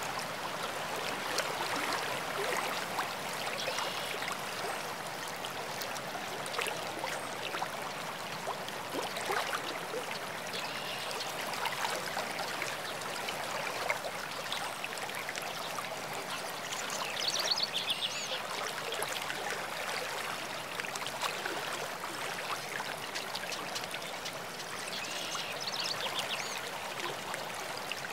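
Water running steadily over rock in a shallow stream cascade, with a few brief bird chirps twice in the second half.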